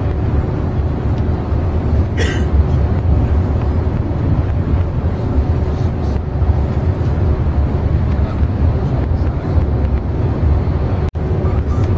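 Steady low rumble of a coach bus driving at speed, heard from inside the passenger cabin, with a faint steady hum; the sound cuts out for an instant near the end.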